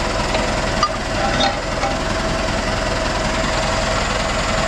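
A vehicle engine idling steadily, with two short knocks about a second and a second and a half in.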